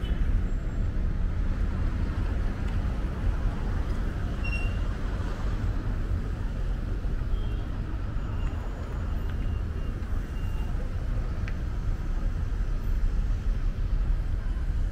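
Steady road traffic: engines and tyres of cars passing and idling at a busy city intersection, a continuous noise heaviest in the lows, with a few faint short high tones scattered through it.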